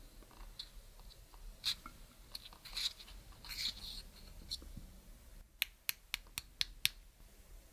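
Clear slime being worked by hand, giving scattered small sticky crackles and clicks, then a quick run of about six sharp clicks near the end.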